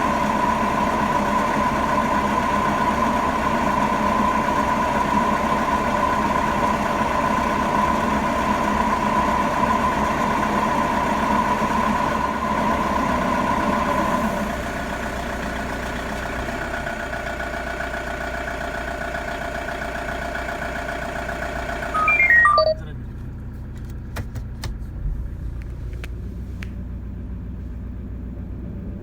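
Toyota Hiace KDH200 van on the move, with a steady droning 'goo' from the rear, like a nearby aeroplane, which the mechanic attributes to worn bearings in the differential. The drone changes about halfway through, and a brief loud falling run of tones about 22 s in is followed by a much quieter stretch.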